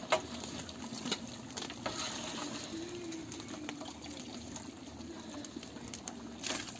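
A large pot of soup bubbling on the boil, a steady seething sound with scattered small pops and clicks, a few sharper ones in the first second or so.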